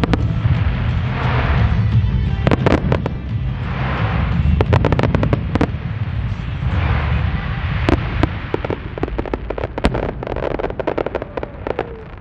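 Star mine fireworks firing: aerial shells burst with sharp bangs amid rapid smaller reports, and spells of dense crackle come about every three seconds. The barrage thins and grows quieter over the last few seconds.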